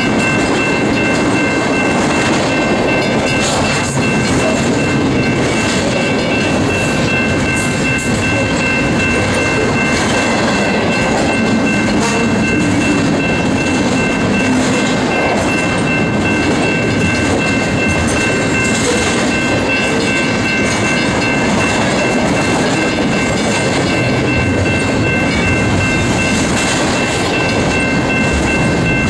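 Double-stack intermodal container cars of a freight train rolling past, steel wheels running on the rails in a steady rumble, with a thin, steady high whine over it.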